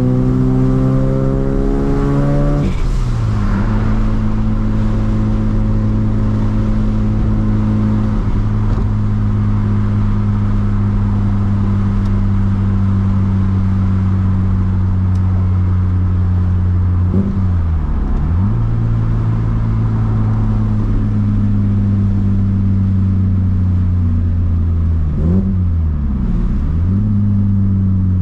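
Streetported 13B two-rotor rotary engine of a single-turbo Mazda RX-7 FD3S through its straight-pipe exhaust, revving up through a gear, then changing gear about two and a half seconds in and settling into a steady cruise. The engine note twice dips sharply and climbs back, about 17 and 25 seconds in. It is driven gently on a low-boost run-in tune after a rebuild.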